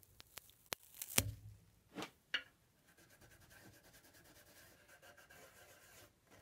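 Cloth damp with mineral spirits scrubbing old felt-pad adhesive residue off the end of a chair leg: a few short rubbing strokes in the first two and a half seconds, then only faint rubbing.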